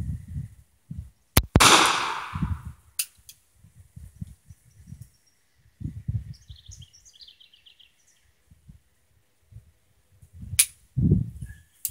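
A single shot from an 1889 Bodeo revolver in 10.4 mm rimmed, the loudest sound, cracking about a second and a half in and ringing off. Near the end comes a sharp metallic click of the hammer falling on a round that doesn't fire, which the shooter puts down to the ammunition, since the primer got a good strike. Birds chirp briefly in between.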